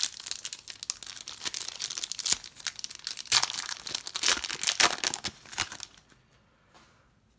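Plastic wrapper of a Donruss trading-card pack being torn open and crumpled: a dense crinkling rustle that stops about six seconds in.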